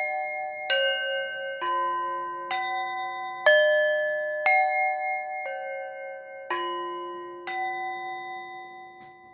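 Bell-like chime notes struck one at a time, about once a second, each at a different pitch and ringing on under the next. The last note dies away near the end.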